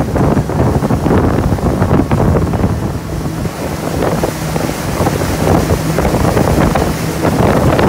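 Wind buffeting the microphone on a moving wake boat, over the rush of churning wake water and a steady low hum from the boat's engine.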